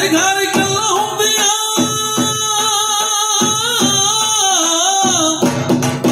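Punjabi folk music for a Luddi dance: a singer holding long, wavering notes over a drum beat, the sung phrase ending about five seconds in.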